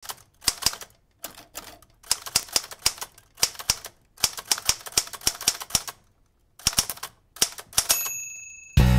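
Typewriter keys clacking in quick bursts of strokes with short pauses between them, then a ringing bell-like ding about eight seconds in.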